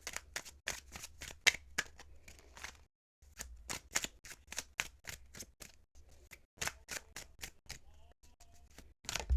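A thick-cardstock tarot deck being shuffled by hand: a run of quick, irregular card slaps and flicks that breaks off briefly about three seconds in, then goes on and thins out near the end.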